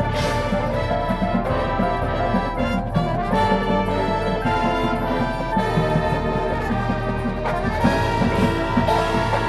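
High school marching band playing: full brass chords over drums.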